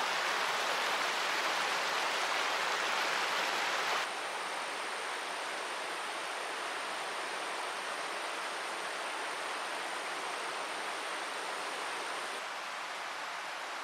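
Rushing river water: a steady, even hiss of running water that drops abruptly in level about four seconds in and again slightly near the end.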